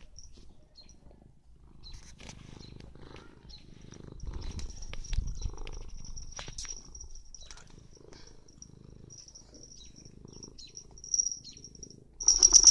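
Domestic cat purring, a low pulsing rumble, with a few faint clicks, a thin high tone that comes and goes, and a louder burst near the end.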